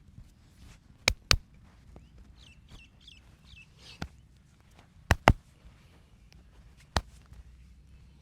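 Sharp slaps and pops of a barber's hands during an ear and head massage: six crisp cracks in all, two quick pairs about a second in and about five seconds in, a softer one near four seconds and a single one near seven seconds.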